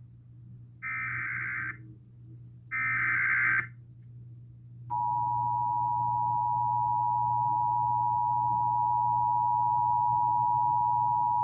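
Emergency Alert System SAME header: two short, buzzy data bursts about two seconds apart. About five seconds in, the EAS two-tone attention signal starts, a steady two-note tone that holds on without a break.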